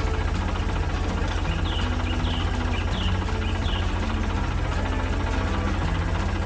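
Tractor engine running at a steady idle with a low, even rumble. A few short high chirps come in about one and a half to four seconds in.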